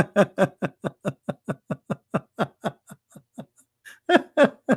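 A man laughing in a long run of short, rapid "ha" pulses that fade away, then break out again more loudly near the end.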